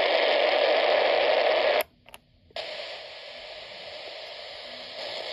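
Static hiss from a Solar Crank CR1009 emergency radio's speaker while it is tuned between stations: a loud hiss for nearly two seconds, a short dropout, then a quieter hiss.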